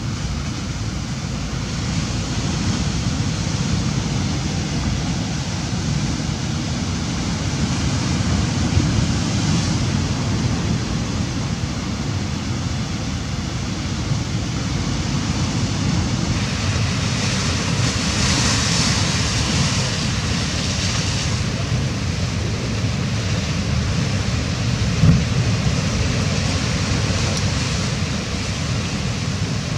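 Ocean surf breaking and washing over rocks, a steady rushing with a deep rumble, swelling into a louder hiss of foam about two-thirds of the way through.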